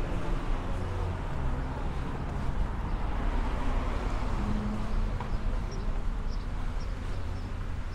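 Outdoor street noise: a steady low rumble of passing traffic with a general hum of the town street.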